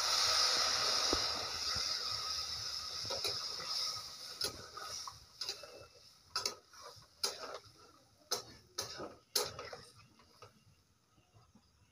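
Water poured into a pan of hot oil and frying potatoes and cauliflower sizzles, the hiss loudest at first and fading over about four seconds. Then a metal spatula knocks and scrapes against the pan as the vegetables are stirred, in sharp irregular taps about once a second.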